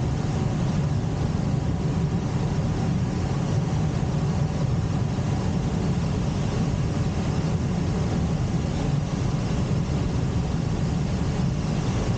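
Steady drone inside a glider cockpit on aerotow: air rushing over the canopy, mixed with the engine of the tow plane pulling it. The sound is even and unbroken, with most of its weight low down.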